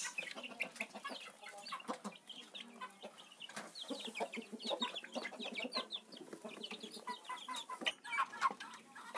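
Kampung (Indonesian village) chickens clucking, with many short calls overlapping throughout.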